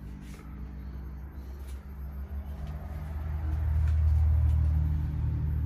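Low, steady electrical hum from a Victron MultiPlus-II inverter/charger while it is inverting, growing louder about three seconds in, with a few faint clicks.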